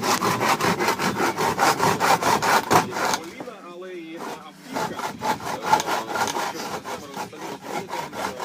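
Hand saw cutting through a pine table leg in quick, even back-and-forth strokes. The sawing breaks off a little past three seconds in for about a second and a half, then resumes.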